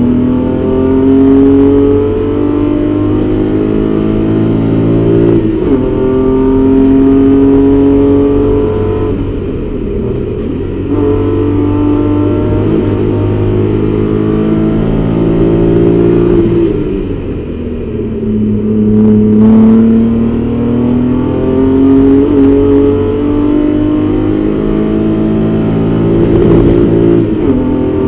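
BMW 325is race car's inline-six engine at high revs, heard from inside the cabin. Its pitch climbs through the gears and breaks at each gear change. It dips once as the car lifts off, and falls away and climbs again about two-thirds of the way through as it slows for a corner.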